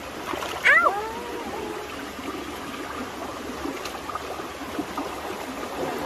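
Shallow stream water running and trickling over rocks. About a second in there is a brief, loud, high-pitched squeal whose pitch falls.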